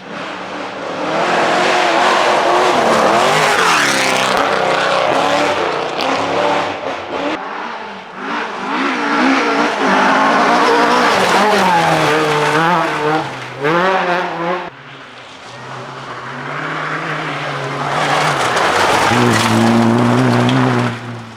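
Rally car engine revving hard, its pitch climbing and dropping repeatedly through gear changes and lifts. It is loudest in three stretches, with dips about a third of the way in and two thirds of the way in.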